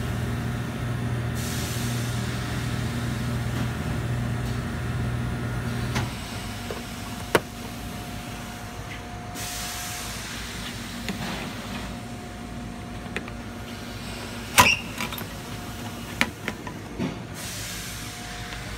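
Environmental test chamber running with a steady hum that cuts off about six seconds in as the test is stopped. Afterwards a quieter background carries a few sharp clicks and knocks, the loudest a little past the middle, and three short bursts of hiss.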